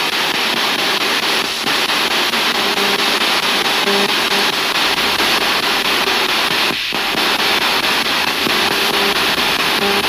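Spirit box sweeping radio frequencies through a portable speaker: a steady loud hiss of static broken by short blips of tone from passing stations.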